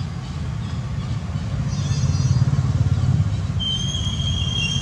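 Steady low engine rumble, like a motor vehicle running. Near the end there is a thin, high whistle about a second long.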